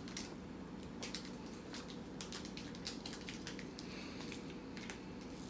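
Plastic snack wrapper crinkling in scattered small clicks as it is handled and tugged at to get it open, over a low steady room hum.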